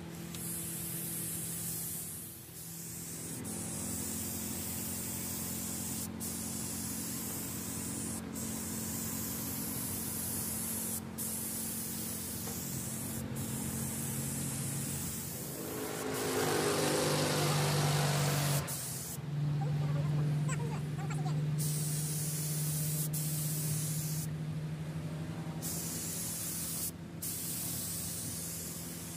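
Gravity-feed paint spray gun hissing as compressed air atomises paint, the hiss cutting out briefly several times as the trigger is let off. A steady low hum runs underneath, and there is a louder stretch about halfway through.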